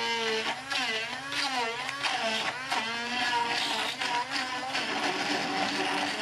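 Electric hand (stick) blender running in a cup of chopped tomatoes, chillies, shallots and garlic with water, grinding them into a chilli paste. Its motor whine rises and falls in pitch continually as the blade works through the chunks.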